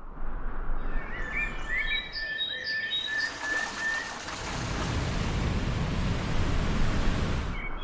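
Birds chirping and calling, joined about three seconds in by a steady rushing of river water over a cascade that grows fuller and then cuts off abruptly near the end, leaving the birdsong again.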